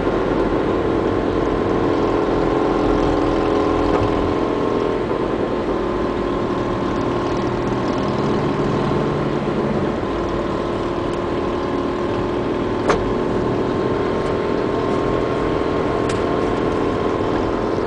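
Steady engine drone and road noise heard from inside a moving car's cabin, its pitch shifting slightly about five and ten seconds in. A single sharp click comes about thirteen seconds in.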